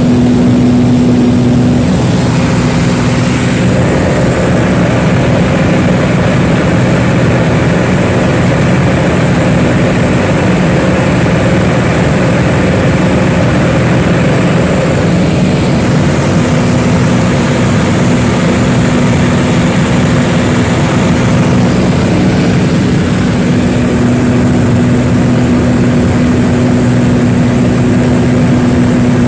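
Pitts S-2B aerobatic biplane's piston engine and propeller droning loudly in flight, heard from the open cockpit with heavy rushing air mixed in. The tone shifts a few times, with changes a couple of seconds in, about halfway and near the end.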